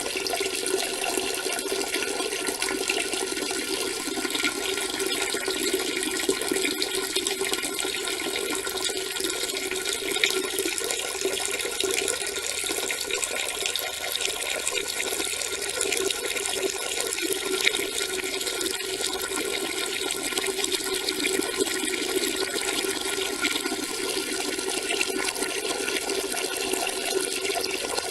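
A steady stream of urine splashing into toilet-bowl water, unbroken and even throughout.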